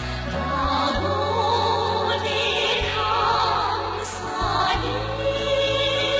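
Vocal music with vibrato singing, operatic in style, over orchestral accompaniment.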